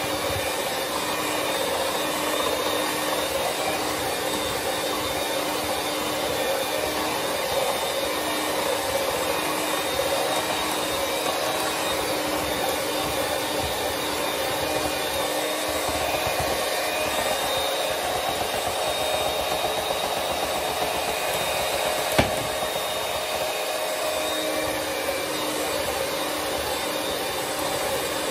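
Electric hand mixer running steadily, its beaters whirring through pound cake batter in a glass bowl, with one sharp click about three-quarters of the way through.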